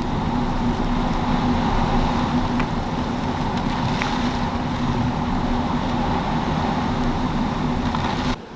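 Hurricane wind blowing hard and steadily, a loud dense rushing noise with a steady low hum underneath. It starts and stops abruptly.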